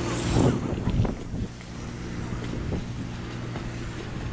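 Pressure washer's engine running with a steady hum, with the spray hissing on the roof tiles only at the very start. Two short bumps come about half a second and a second in.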